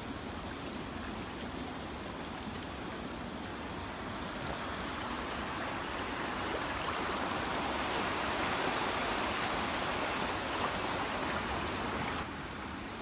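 Shallow river current running steadily over weed beds. The rush swells in the middle and drops suddenly shortly before the end.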